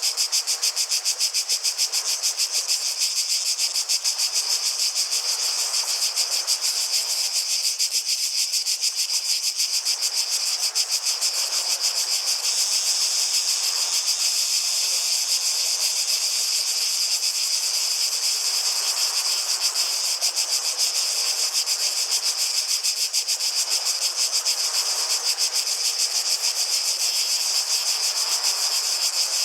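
Cicadas singing in a loud, steady chorus: a high-pitched buzz made of very rapid pulses. Beneath it a fainter lower hiss swells and fades now and then.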